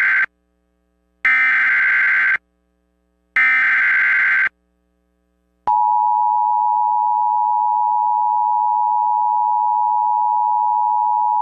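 Emergency Alert System SAME header: the end of one data burst, then two more bursts of rapid digital tones about a second apart. About six seconds in, the steady two-tone EAS attention signal starts, announcing an Amber Alert broadcast.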